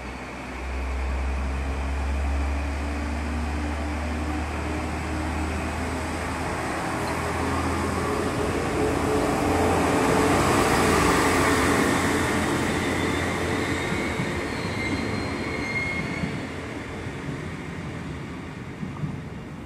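A DB Class 628 diesel multiple unit pulls away, its underfloor diesel engine giving a deep drone as it powers up. The train noise grows as it rolls past, loudest about halfway through, then fades as it moves off, with a thin wheel squeal partway through the fade.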